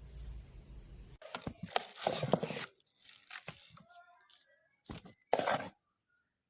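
Packaging being handled and torn, with rustling and crinkling in two main bursts: one from about a second in, a shorter one near five seconds in.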